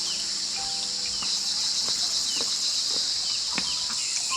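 Steady high-pitched chorus of insects, with a few faint short bird chirps and light clicks over it.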